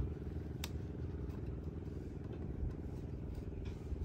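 An engine running steadily at a constant speed, a low even hum, with a single sharp click a little over half a second in.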